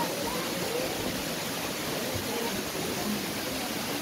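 Steady rushing of flowing water, an even wash of noise with no breaks.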